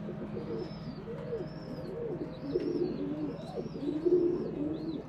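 Pigeons cooing, a run of short rising-and-falling coos one after another.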